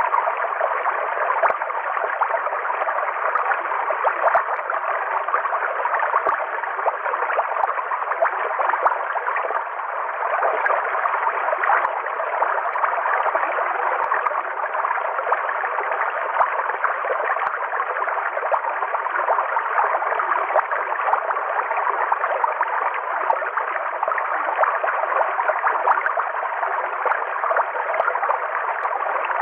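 River water flowing steadily, an even rushing sound with no breaks or changes.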